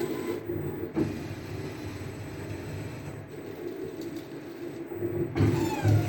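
CNC router's stepper-driven axes moving through a job, a steady mechanical hum with a click about a second in. Near the end it grows louder, with whines that glide up and down in pitch as the axes change speed.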